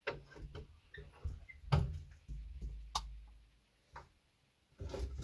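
A door being opened and someone stepping into a small room: irregular clicks and knocks with low thumps, the loudest a little under two seconds in and a sharp click about three seconds in, then a short lull.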